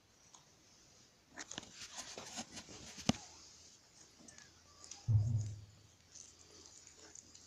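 Soft rustling and small clicks of a hand moving among puppies on a blanket, ending in one sharp click about three seconds in. A dull low thump follows about five seconds in.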